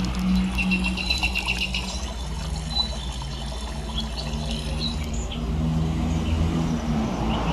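Recorded nature sound effects, birds chirping over running water, played back through a small speaker driven by a car MP3/FM transmitter. A rapid trill of chirps comes in the first two seconds, with scattered single chirps after.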